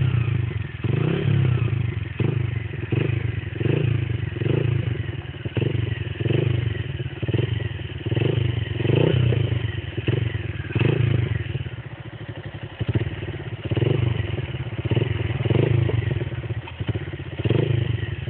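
Honda CG Fan motorcycle's single-cylinder four-stroke engine running through an aftermarket 'boca 8' exhaust, blipped on the throttle over and over so the note swells and drops about once every three-quarters of a second.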